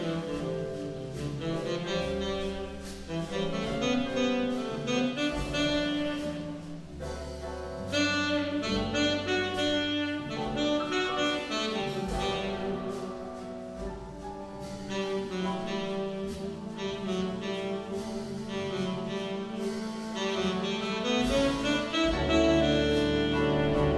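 Jazz big band playing: a saxophone solo over piano, upright bass and drums with cymbal strokes, the brass section coming in louder near the end.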